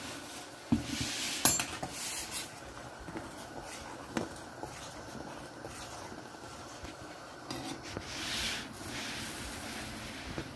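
Metal spoon knocking and scraping against a pot as grits are stirred into boiling water, with a few sharp clinks, over a steady hiss from the pot.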